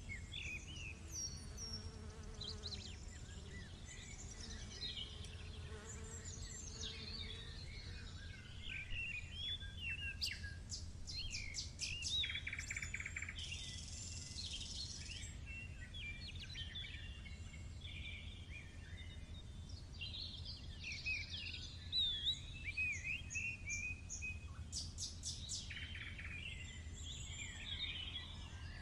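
Several small songbirds singing and chirping, with overlapping quick whistles and rapid trills, over a steady low hum.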